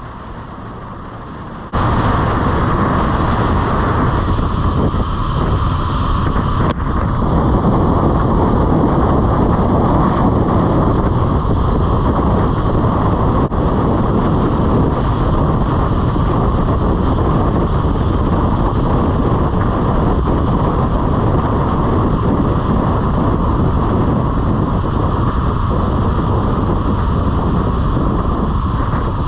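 Wind rushing over the microphone of a moving motorcycle, with road and engine noise underneath. It becomes much louder about two seconds in and then holds steady.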